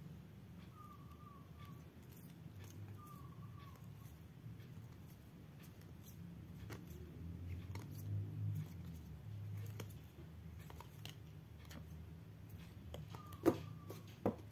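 Quiet handling of plastic toy rider cards: low rustling and rumbling noise, with a few faint short squeaks and two sharp clicks near the end.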